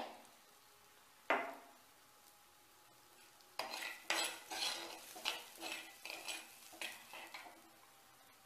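Steel spoon stirring green chillies and chilli powder in a black kadhai, scraping and clinking against the pan. One clink comes about a second in, then a run of about ten quick scrapes and clinks through the middle.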